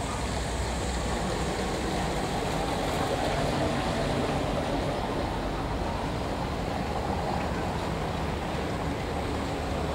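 Steady harbour ambience: a constant low engine rumble under a wash of wind and water.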